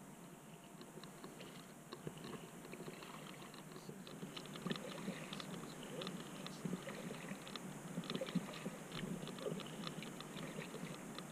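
Faint water lapping and dripping against a kayak's hull, heard as irregular small clicks and ticks that grow denser about four seconds in.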